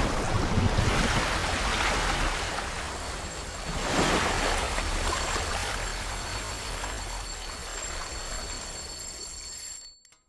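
Rushing-water and splash sound effect, surging at the start and again about four seconds in, then easing off with faint high steady tones ringing under it before it cuts off near the end.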